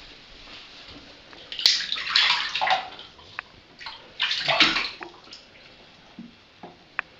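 Water splashing and sloshing in a bathtub as a kitten paddles in it: two bursts of splashing, about two seconds in and again near five seconds, followed by a few small knocks.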